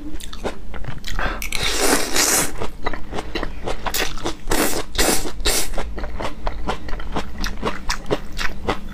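Close-miked chewing of crisp, crunchy spaghetti squash strands: a quick run of sharp crunches and bites. Two longer hissing stretches, about two seconds and five seconds in, are strands being slurped into the mouth.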